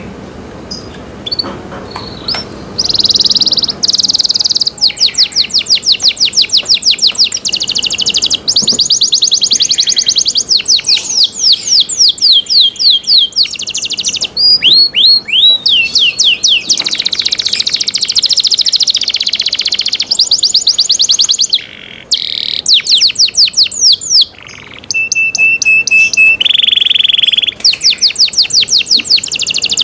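Domestic canary singing a long song of fast repeated trills and rolls, starting about three seconds in after a few soft chirps. There are two brief pauses late on, then a short held whistle and a buzzier note before the trills resume.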